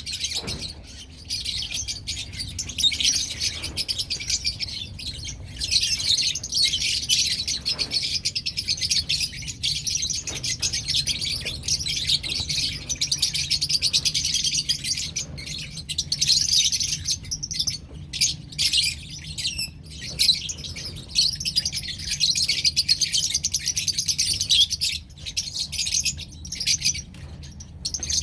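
Lovebirds chirping and chattering, many rapid high-pitched calls overlapping almost without a break, with a few short lulls.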